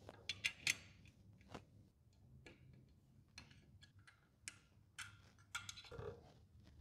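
Faint, irregular small metallic clicks and ticks of a hex key turning and seating screws and lock washers as the air cylinder is tightened onto the can-crusher frame.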